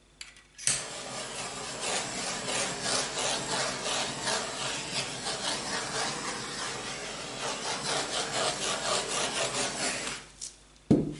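Handheld butane torch burning with a steady hiss as it is swept over wet acrylic pour paint to pop air bubbles. It starts with a click or two under a second in and stops near the end, followed by a single sharp knock.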